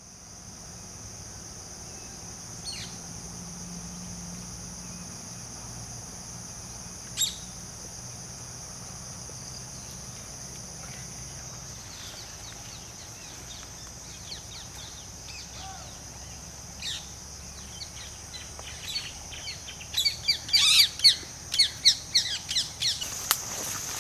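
Tropical scrub-jungle ambience: a steady high-pitched drone of insects with scattered bird chirps. Near the end comes a quick run of loud, sharp ticks and clicks.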